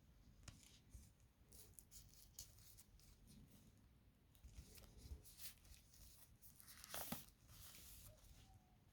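Faint handling noises from unwrapping a CD package: crinkling plastic wrap and light clicks, with a louder rustle about seven seconds in.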